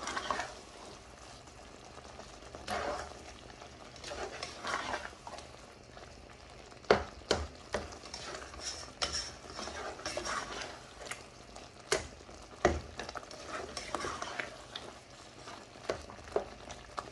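A spoon stirring and scraping through tomatoes cooking down in a metal karahi, over a light sizzle, with a few sharp knocks of the spoon against the pan.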